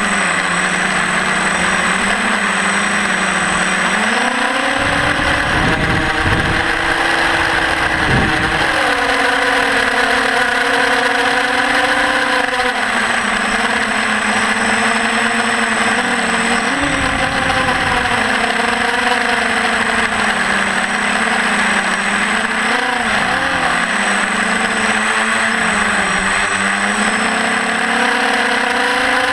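Quadcopter's brushless motors and propellers whining, the pitch rising and falling as the throttle changes, with brief gusts of wind noise several times.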